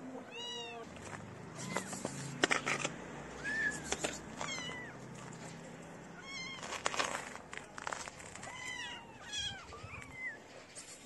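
Kittens meowing: many short, high-pitched mews at varying pitch, with scattered sharp clicks between them.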